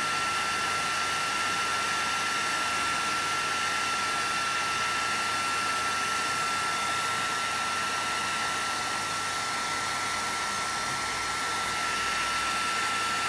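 Makita DHG181 18V cordless heat gun running steadily, its fan blowing air with a steady high whine.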